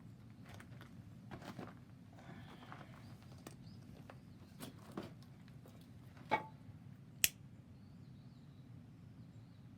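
Firewood burning in a wood stove: scattered soft crackles and ticks, with two sharper pops a little past halfway, over a steady low hum.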